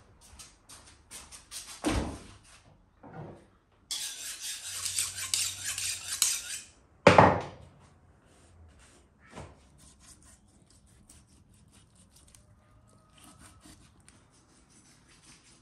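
A large kitchen knife and a wooden table and board being handled: a few knocks on wood, about two and a half seconds of rubbing, and a loud sharp knock about seven seconds in. Then only faint small sounds as the knife slices quietly into a raw lamb side.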